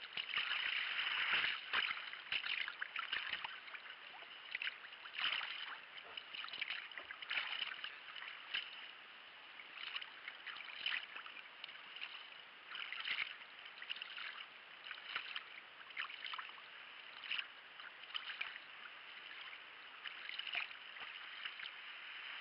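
Sea kayak paddle blades dipping and splashing in calm water with a steady wash of water along the hull, a stroke every second or so.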